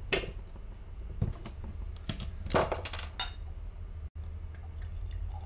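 A wine glass and bottle being handled on a table, clinking and knocking in a few sharp clicks, the loudest about halfway through, over a low steady hum.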